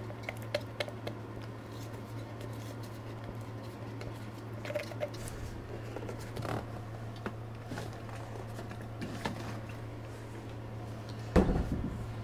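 Small clicks and taps of hands working at a bench: epoxy being stirred in a cup, then a bottle and tools picked up and set down, over a steady low hum. One louder knock near the end.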